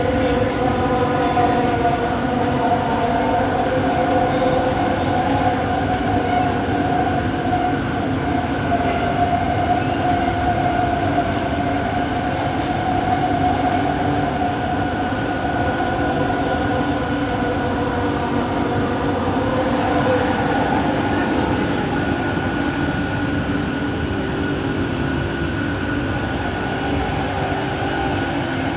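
Cabin sound of a Bombardier Innovia ART 200 metro train running at speed: a steady rumble of the wheels on the track, with a layered whine from its linear induction motor drive that drifts slightly in pitch.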